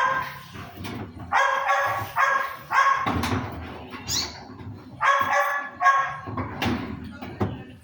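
A dog barking repeatedly, in short runs of two or three barks with brief pauses between them.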